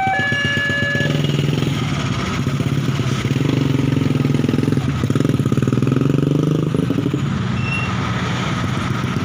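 Vehicle engines running at a railway level crossing: a steady hum with a dense even pulse that rises and falls in pitch. A two-tone signal, a horn or crossing warning, stops about a second in.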